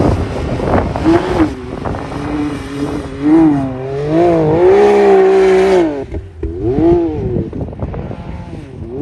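Can-Am Maverick X3 side-by-side's turbocharged three-cylinder engine through a Yoshimura exhaust, revving up and down hard as the wheels spin and slide through mud and snow. It is held at high revs for about a second and a half past the middle, drops off sharply, then revs up twice more.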